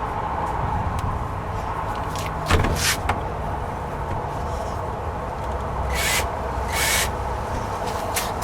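Short clicks, knocks and brief scraping bursts of screws being worked into the plastic door hinge of a resin storage shed, the loudest a sharp knock about two and a half seconds in and two scrapes near six and seven seconds, over a steady low background rumble.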